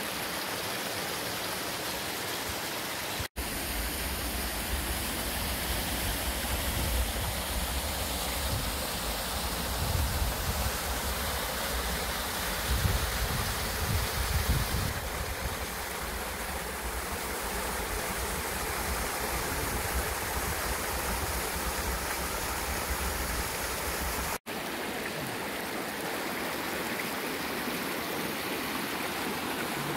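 River water rushing and splashing over rocks and small cascades, a steady noise throughout. In the middle stretch a deeper rumble sits under it, swelling about halfway through. The sound drops out for an instant twice, about 3 seconds in and near 24 seconds, where clips are joined.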